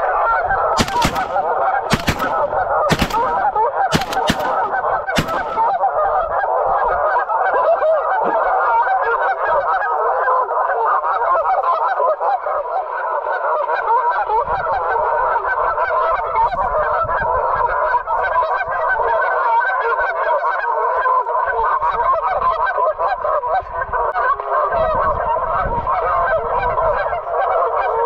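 A large flock of geese honking steadily without a break. Six sharp shotgun blasts come in the first five seconds, about one a second, with two close together near the fourth second.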